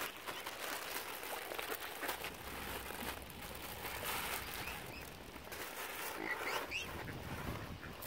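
Mute swan cygnets feeding at close range, their bills dabbling and pecking at the wet ground in a rapid run of wet clicks. A few short high calls come late on.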